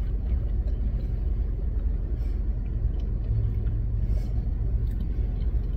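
Steady low rumble of a car idling, heard inside the cabin, with a low hum that grows stronger for a second or two past the middle.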